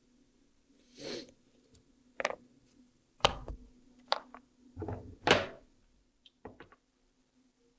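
A handful of irregular knocks, clicks and short rustling noises over a faint steady hum, with the loudest knocks about three seconds and five seconds in.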